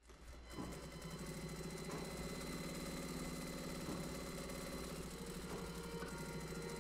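Industrial sewing machine running steadily, a fast mechanical hum that fades in and holds.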